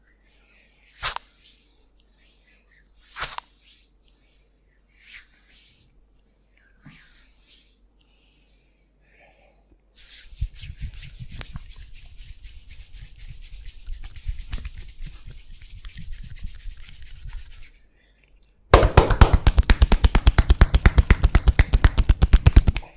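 Massage by hand: a few soft swishes of hands stroking skin, then about ten seconds in, continuous brisk rubbing. Near the end come rapid, loud, evenly repeated hand strikes, the percussive chopping and slapping of a barber's tapotement massage.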